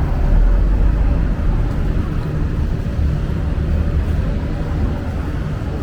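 Outdoor city street noise, a loud steady low rumble with a hiss above it and no single distinct event.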